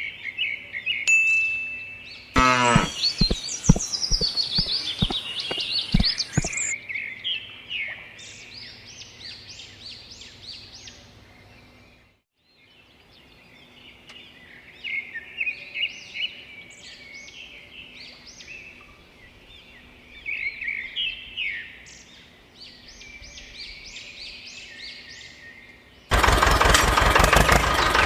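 Small birds chirping and twittering in quick short calls, with a loud clattering, whirring burst a few seconds in. Near the end a loud, rapid mechanical rattle starts suddenly, like a small motor or engine running.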